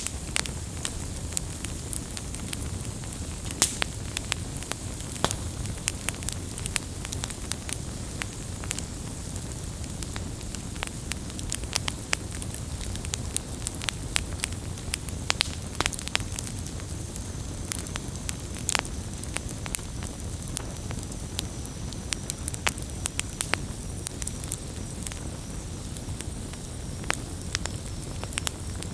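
Wood campfire burning steadily: a low rumble of the flames with frequent sharp, irregular crackles and pops of the burning wood.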